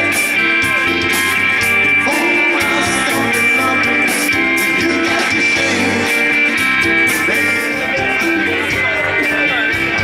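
Live rock band playing: electric guitars, bass and drums with cymbal hits, at a steady loud level.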